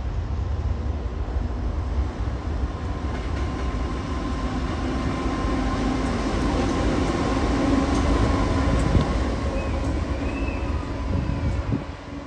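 Pacific National NR class diesel-electric locomotive running light engine: a steady low engine rumble with a held whine, growing louder to a peak about nine seconds in and falling away near the end as it passes.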